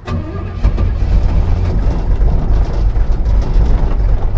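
Pontiac 350 V8 cranking and catching about half a second in, then running loud and steady, on its first start after new spark plugs, plug wires and distributor.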